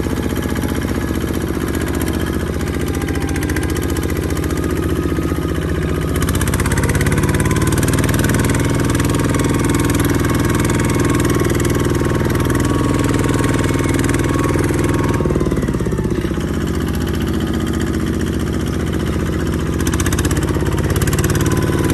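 Single-cylinder diesel engine of a two-wheel walking tractor running steadily while pulling a trailer through mud. Its note rises about six seconds in, drops back about fifteen seconds in, and rises again near the end.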